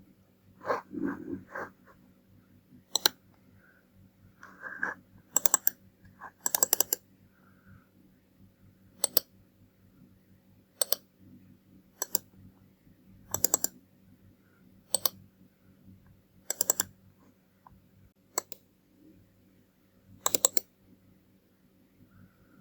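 Computer mouse buttons clicking: single clicks and quick double clicks, each short and sharp, spaced a second or two apart over a faint steady hum. A few softer, duller knocks come near the start.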